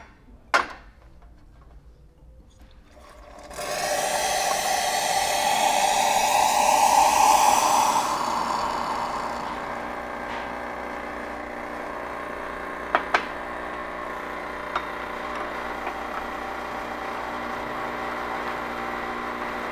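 Hot water from a Profitec Pro 300 espresso machine running into a container of espresso detergent, the pouring sound rising in pitch as the container fills. After about eight seconds it settles quieter and steadier, with a couple of clicks.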